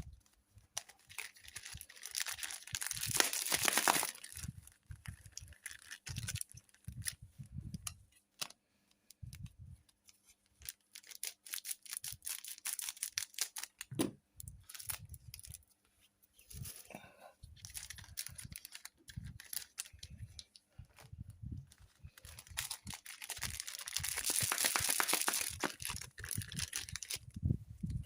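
Foil trading-card packs being cut open and handled, the wrappers crinkling and rustling in irregular bursts, with two longer stretches of cutting or tearing about three seconds in and again near the end.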